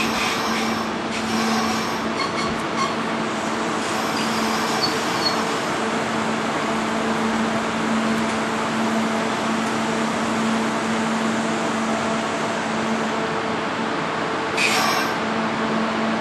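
Kintetsu 30000 series Vista EX express train creeping slowly up to a standing train for coupling, with a steady hum and a constant low tone from its equipment. A brief burst of hiss comes near the end.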